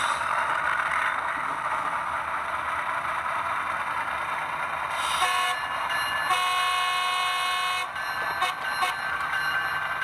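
An HO-scale ET44AC model's LokSound sound decoder playing a GE diesel locomotive's horn through the model's small speaker, over the steady engine sound. The horn gives a short blast about five seconds in, then a longer blast of about a second and a half, then two quick toots.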